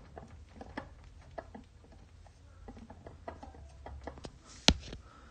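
Faint scattered clicks and light knocks from a finger rocking the LT4 supercharger's pin-type rotor drive coupler, with one sharper click near the end. The coupler is one the rebuilder judged bad.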